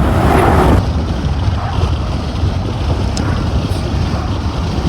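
Wind buffeting the microphone: a steady low rumble, with a louder rush of noise in the first second.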